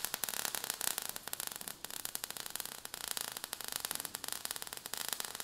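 Crackling sparks sound effect: a dense run of fine crackles over a steady hiss, mostly high-pitched.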